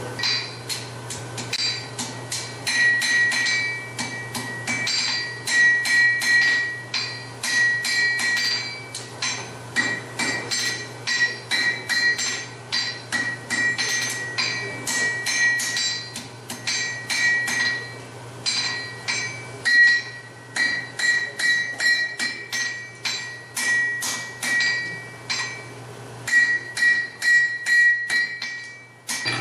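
Hand hammer striking red-hot split steel bar stock on an anvil: quick runs of blows, roughly two to three a second, each with a bright anvil ring, broken by brief pauses to reposition the work. A steady low hum runs underneath.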